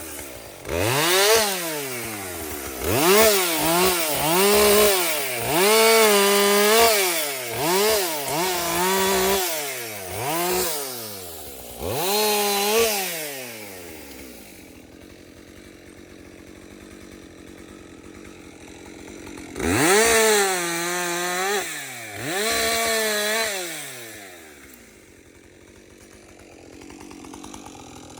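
Two-stroke chainsaw revved up to full throttle in a run of short bursts, each held a moment and dropping back, then idling; two more bursts come about twenty seconds in before it drops back to a quieter idle.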